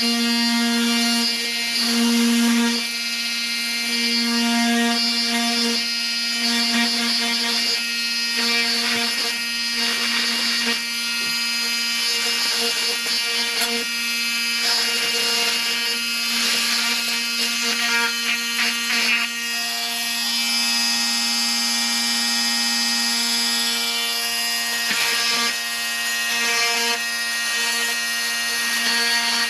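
Handheld bladed power tool running steadily with a constant motor hum, cutting a humidifier pad down to size, with stretches of rougher cutting noise where the blade bites.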